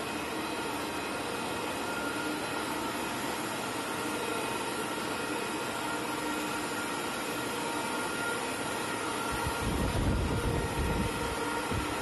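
Cable-making machinery running: a steady whirring hum with a few faint steady tones. A low rumble comes in near the end.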